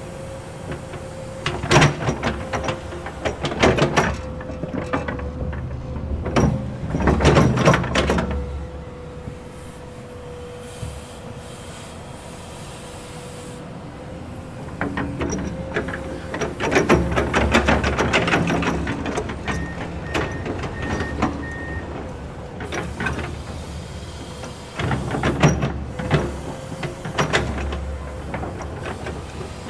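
Komatsu excavator at work: the engine runs with a low rumble and a steady whine, broken by repeated bursts of clanking and scraping, with a calmer stretch in the middle. A short run of high beeps comes about two-thirds through.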